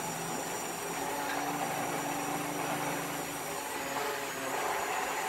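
Braun stick blender running steadily in a pot of stewed beans, puréeing them.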